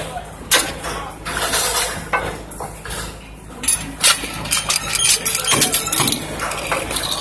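Irregular metal clanks and clinks from rebar and crane rigging being handled, over a steady low machinery hum.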